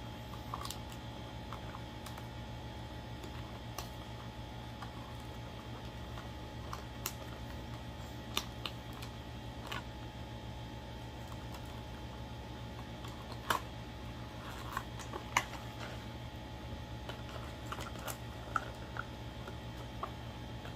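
Scattered sharp clicks and taps of a package being handled and worked open by hand, over a steady low hum.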